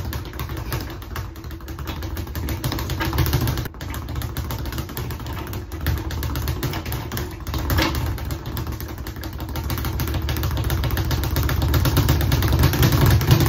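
Speed bag being punched in a fast, continuous rolling rhythm, the bag rebounding off the Title Boxing platform in a dense rapid drumming. It gets louder over the last few seconds.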